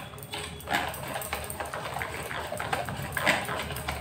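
Wire whisk beating thick cake batter in a metal bowl, scraping and clinking against the bowl in uneven strokes.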